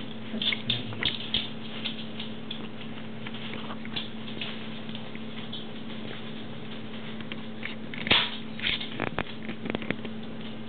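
Yorkie-mix puppies' paws scrabbling and pattering on puppy training pads: scattered light scratches and rustles, loudest in a cluster about eight seconds in, over a faint steady hum.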